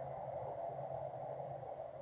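Continuous machinery noise from an industrial plant: a steady, even rush with a low hum underneath.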